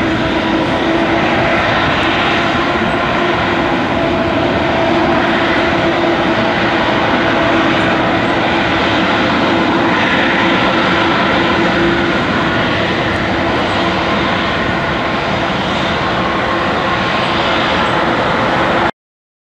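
An Airbus A321-231's two IAE V2500 turbofans running at taxi power: a steady jet whine with several held tones, cut off abruptly near the end.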